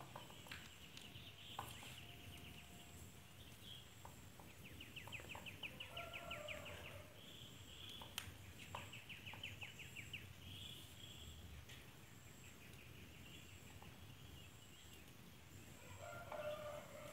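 Faint bird calls: several runs of rapid high trilled chirps, with a few short lower calls, over quiet room tone and a few faint clicks.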